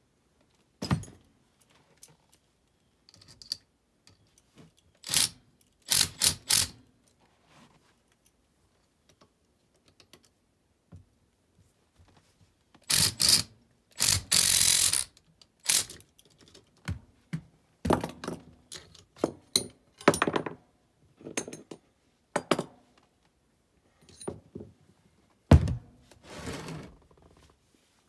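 Scattered knocks, clicks and clanks of metal blower parts and hand tools being handled during an ECM blower motor swap. A denser burst of rattling comes about halfway through, and a heavy thunk comes near the end.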